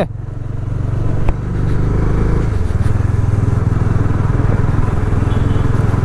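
Bajaj Dominar 400's single-cylinder engine running under way on a ride, with a short click about a second in and a change in its note about two and a half seconds in. It runs cleanly, without the valve-shim noise that was the owner's complaint.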